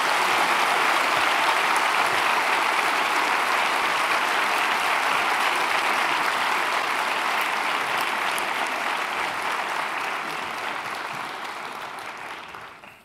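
Applause from a large audience filling an auditorium, steady and dense, then dying away over the last few seconds.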